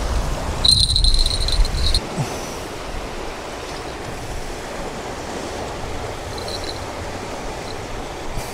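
Wind buffeting the microphone for the first two seconds over the steady wash of small waves breaking on a rocky lakeshore, then only the wave wash. A thin high squeak sounds for about a second, starting just under a second in.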